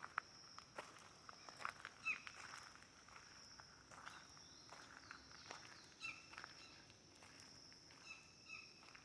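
Footsteps crunching on the forest floor under a steady high-pitched insect drone, with a few short bird chirps about two seconds in, around six seconds and near the end.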